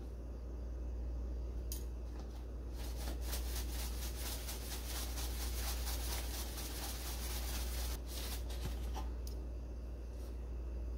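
Dry breadcrumbs rustling and scraping in a plastic tub as it is shaken to coat a piece of breaded chicken, a dense crackle lasting about five seconds, with a few sharp clicks before and after. A steady low hum runs underneath.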